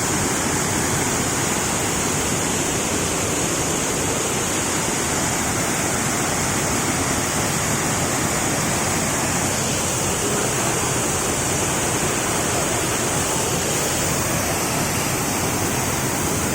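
Waterfall pouring heavily, a steady, loud rush of falling water.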